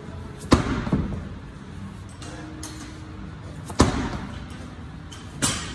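Slam ball thrown down hard onto a rubber gym floor three times, each a sharp thud. The first slam is followed a moment later by a smaller rebound thud.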